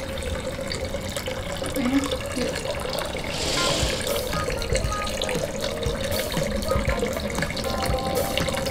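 Water running from a water purifier's drain hose into a partly filled bucket as the tank is flushed out, a steady splashing trickle with a brief stronger hiss a few seconds in.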